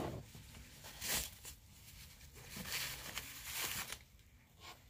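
Fabric dust bag and cardboard packaging rustling and rubbing as they are handled, in a few short bursts with a longer stretch of rustling in the middle.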